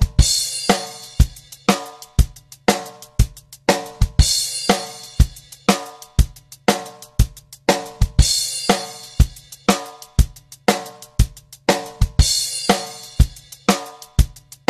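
Background music with a steady drum-kit beat, about two hits a second, and a cymbal crash about every four seconds.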